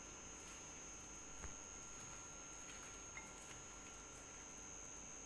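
Faint room tone with a steady thin high-pitched whine, and one small click about a second and a half in.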